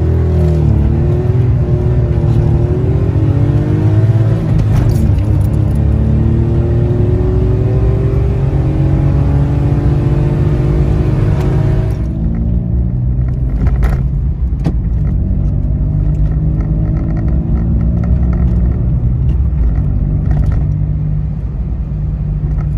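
Citroën C1's engine and exhaust, fitted with a removable dB-killer baffle, heard from inside the cabin under hard acceleration. The engine note rises, drops at a gear change about five seconds in and climbs again, then eases off about twelve seconds in to steady cruising.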